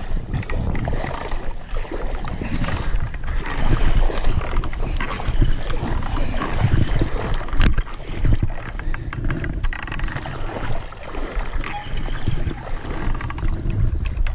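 Shallow water splashing and sloshing around a wading person's legs, loud and uneven, with a few sharp clicks through it.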